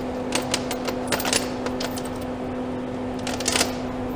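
Steel chain links of a homemade tractor tire chain clinking and rattling as the chain is pulled and handled on a workbench, in scattered clusters of clinks, over a steady low hum.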